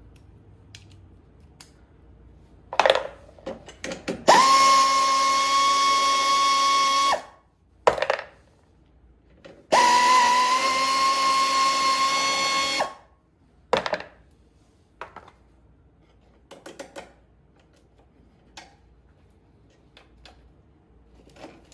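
Cordless drill-driver spinning fasteners off a lawn mower's starter solenoid. It makes two steady whining runs of about three seconds each, each starting with a short rise in pitch, with clicks and knocks of the tool and loose parts before, between and after.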